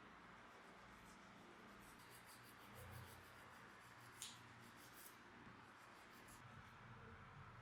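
Near silence with faint scratching and rubbing, a run of small scratchy ticks through the middle and one sharper click about four seconds in.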